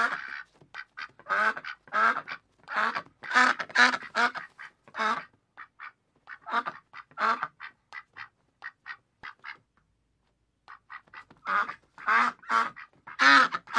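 Duck quack sound effects: a rapid series of short, nasal quacks, about two a second. They thin out and stop for about a second near the ten-second mark, then another run of quacks starts.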